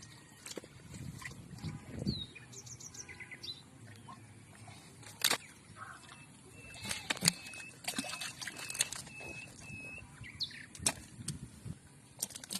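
Small birds chirping in short high notes, one repeating the same short note several times in a row, with a few sharp clicks or knocks between them.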